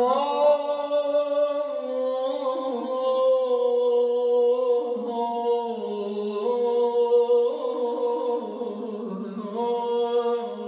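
Persian classical vocal singing (āvāz) in long, wordless held notes that step up and down between pitches, with a second, lower line moving beneath the main one.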